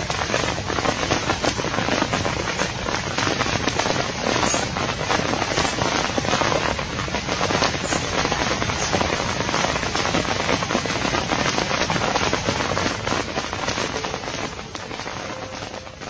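Heavy rain pattering and crackling on leaves, a dense hiss full of fine drop ticks, fading away over the last two seconds.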